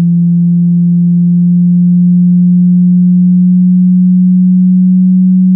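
Loud steady sine test tone sweeping slowly upward in pitch, from about 150 Hz toward 200 Hz, the resonant frequency of a glass bottle, with faint overtones above it. The sweep drives pressure waves at the bottle's mouth onto a candle flame.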